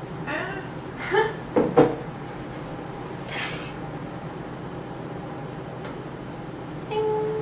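Kitchen clatter: a few knocks and clinks about a second in, a brief scrape a little later, and a short tone near the end.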